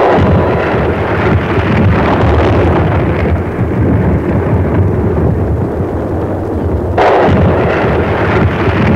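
Loud, continuous rumble of explosions that begins abruptly, with a fresh, louder blast about seven seconds in.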